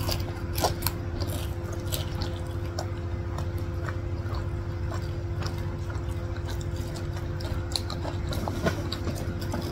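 People chewing mouthfuls of cheese corn dog: scattered wet smacks and small clicks of eating, over a steady low hum.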